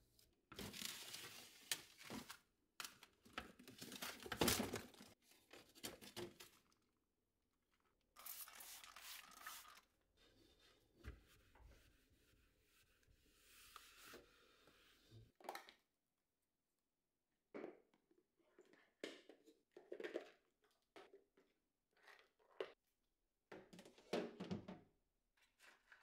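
A cloth wiping and rubbing over a refrigerator's plastic inner door and walls, in irregular scrubbing strokes with brief pauses.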